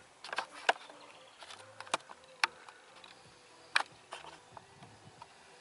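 Irregular sharp clicks and taps, about half a dozen, over a faint outdoor background.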